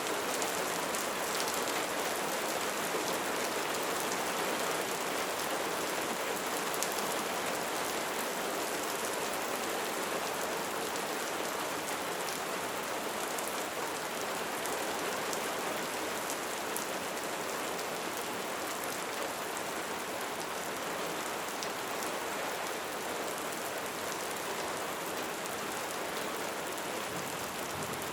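Light rain falling steadily: an even hiss of rainfall with scattered drop patter on surfaces.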